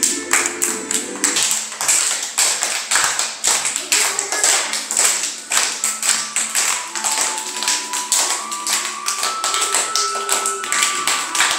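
A group of young children clapping their hands together in a steady rhythm, about three claps a second, over faint music.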